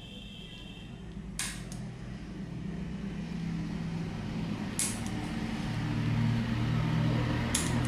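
Sharp single clicks about every three seconds, from the 4-channel relay module switching the light bulbs on and off as the wireless micro switches are pressed. A low steady hum builds up underneath from about halfway in.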